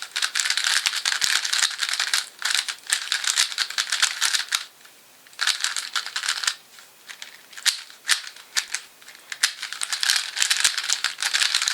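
Gans 356S 3x3 speedcube getting its first turns out of the box: rapid rattling clicks of plastic layers turning, in bursts, with a short pause about halfway through and sparser turns after it before fast turning resumes near the end.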